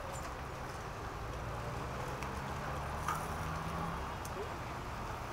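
Bicycles rolling past on pavement over a steady low rumble of traffic, with a few light clicks and rattles.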